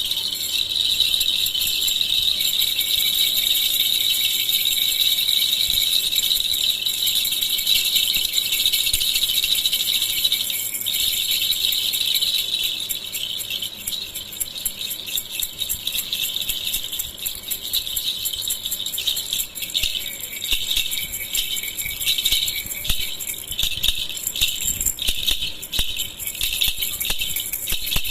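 Baby rattle toy (jhunjhuna) shaken by hand, a high jingling rattle. For the first twelve seconds or so the shaking is continuous; after that it breaks into separate shakes, a couple a second.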